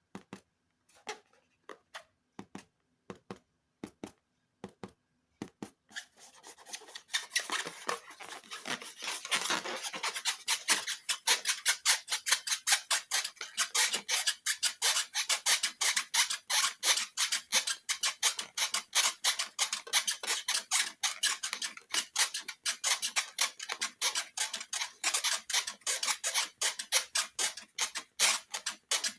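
Slime being worked by hand, with sticky clicking and crackling. A few sparse clicks give way about six seconds in to a dense, rapid crackle that goes on to the end.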